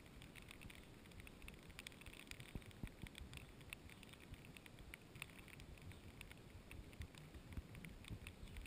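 Faint light rain, scattered drops ticking irregularly, over a low rumble.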